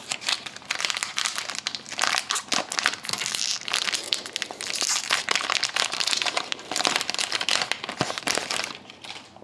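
A hockey card pack's wrapper being torn open and crinkled by hand, a dense run of crackling that stops near the end.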